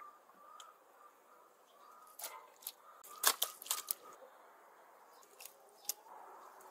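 Raw beef tripe pieces being handled by hand: a few sharp wet slaps and clicks, most of them bunched around the middle, one more near the end.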